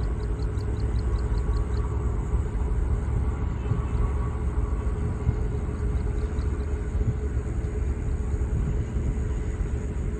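Low, steady rumble of a distant Airbus A319's twin jet engines on approach. A faint, rapid high chirping sits over it in the first two seconds and again briefly about six seconds in.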